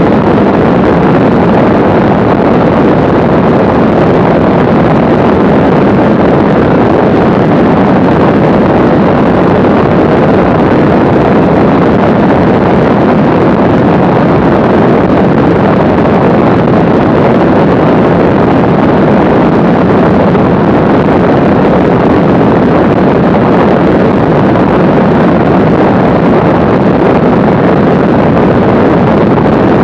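Mooney M20C light plane in cruise flight: a loud, steady drone of its engine and propeller mixed with wind rushing over the microphone, unchanging throughout.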